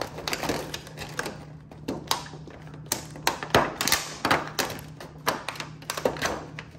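A clear plastic lid and a disposable aluminium foil pan crackle and click again and again as the lid is pressed down by hand. The lid does not snap shut.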